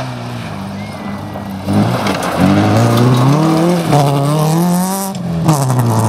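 Fiat Cinquecento rally car's engine revving hard on a gravel stage. It rises steeply in pitch from about two seconds in, dips briefly near four seconds, climbs again, then drops sharply just after five seconds.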